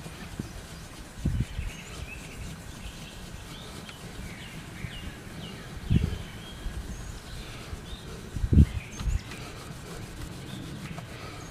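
A cloth rubbing Turtle Wax compound over a guitar's spruce top, with birds chirping throughout and a few dull low thumps, the loudest about six and eight and a half seconds in.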